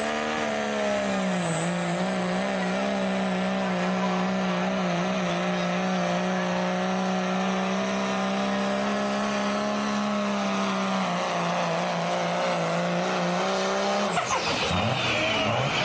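Diesel pickup truck engine held at high, steady revs while it pulls a weight-transfer sled, with a slight dip in pitch about a second and a half in. Near the end the steady note breaks off.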